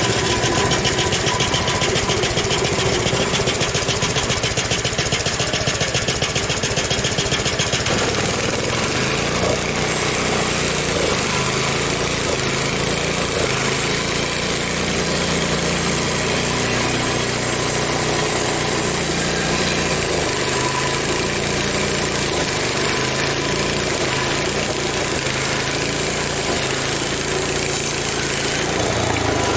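Frontier OS23 portable band sawmill's gasoline engine running steadily, with the band blade cutting through an ash log; the engine's note shifts under load from about eight seconds in.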